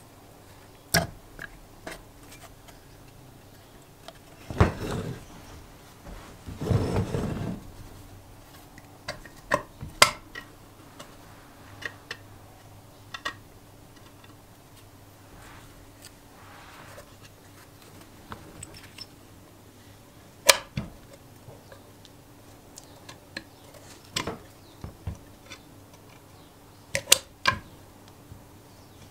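Parts of an old Suffolk Punch lawnmower engine being handled by hand: scattered sharp clicks, clinks and knocks of the metal casing and small components being moved and set down, with two longer, noisier stretches in the first quarter.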